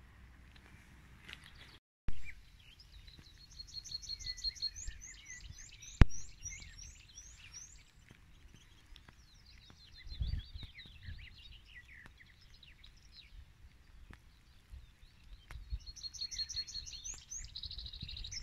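Songbirds singing outdoors: two phrases of quick repeated high chirping notes, one a few seconds in and another near the end. A sharp click about six seconds in stands out above the birdsong.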